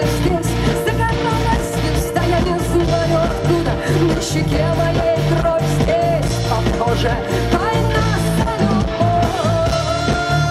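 Live rock band playing through a stage PA: electric and acoustic guitars, bass and drums, with gliding melodic lines over a steady low pulse.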